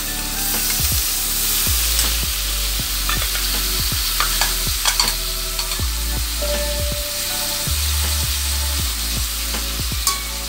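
Sliced potatoes sizzling in a metal wok while a metal spatula stirs and scrapes them, with repeated knocks of the spatula against the pan, over a steady low hum.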